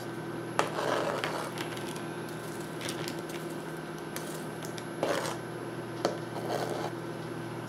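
Chef's knife scraping diced red onion off a plastic cutting board onto a paper plate: a few sharp knocks and short scrapes of the blade on the board, over a faint steady hum.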